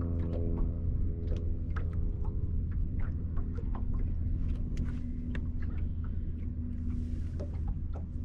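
Steady low hum with a held tone from a boat's bow-mounted electric trolling motor, under a scatter of small irregular ticks and knocks and a brief hiss about seven seconds in.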